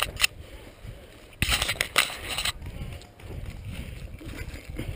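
Leaves and branches rustling and scraping against the camera in a loud burst lasting about a second, starting a little over a second in, followed by softer low thumps of movement and handling.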